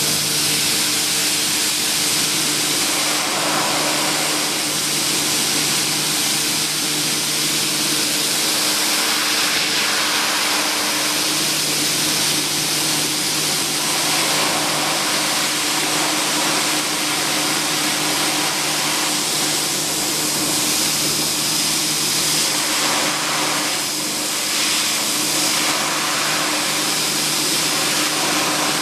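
Sun Joe SPX4001 electric pressure washer running steadily: a motor-and-pump hum under a loud hiss of high-pressure water spray.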